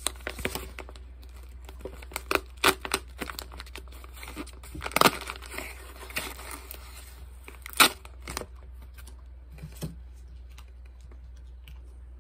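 Wrapping on a small package crinkling and tearing as it is pulled open by hand. There are irregular sharp rips among softer rustling, with the loudest rips about five and eight seconds in, and it dies down near the end.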